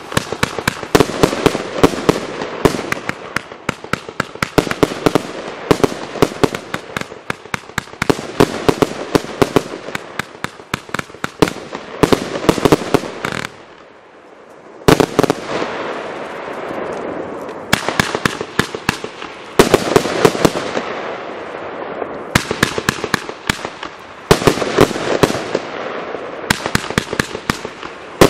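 TB408 Revolution 150-shot firework battery (cake) firing shot after shot in dense, rapid runs of launches and bursts. It stops for about a second around halfway, then resumes.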